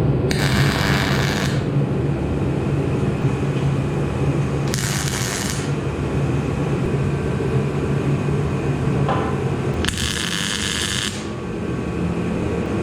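Welding the corners of a steel frame: three crackling welding bursts about a second long each, spaced some four to five seconds apart, over a steady low hum.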